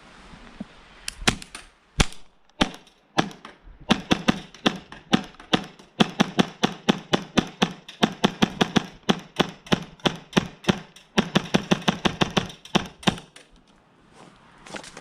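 Action Army AAP-01 gas blowback airsoft pistol firing: a few single shots spaced apart, then a long, fast string of shots lasting about nine seconds that stops about two seconds before the end.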